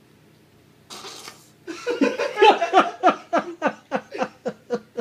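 A person laughing hard: a breathy burst about a second in, then a run of rhythmic 'ha' pulses, about four a second, that grows quieter as it trails off.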